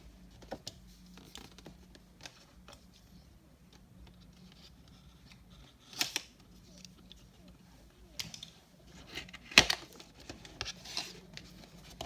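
A cardboard and plastic window box being opened by hand: scattered small clicks and crinkles. There is a short burst of crackling about six seconds in, then a run of sharper snaps and rustles from about eight seconds on, the loudest near ten seconds in.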